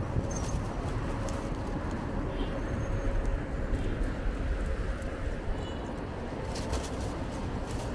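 City street ambience: a steady low rumble of traffic and road noise, with a few faint high chirps and a brief clicking rattle near the end.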